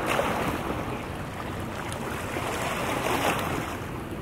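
Wind blowing on the microphone and small bay waves washing against a rocky shoreline, a steady rushing noise that swells twice.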